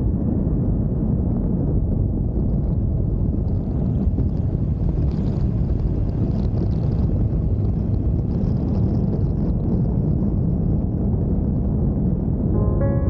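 Harley-Davidson Iron 883's air-cooled V-twin engine running steadily as the motorcycle rides along, with wind noise on the microphone.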